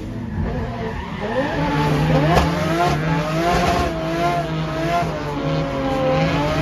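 Turbocharged RB25 straight-six of a Nissan C35 Laurel drift car revving under throttle mid-drift, its pitch rising and wavering up and down, with tyre squeal, heard from inside the cabin.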